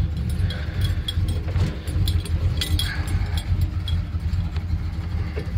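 1979 Chevrolet C10 pickup driving at low speed, heard from inside the cab: a steady low engine rumble with scattered light ticks and rattles. The engine is still cold.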